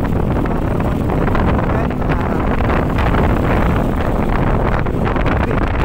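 Wind rushing steadily over the microphone of a Yamaha NMAX V2.1 scooter on the move, with the scooter's running engine and road noise underneath.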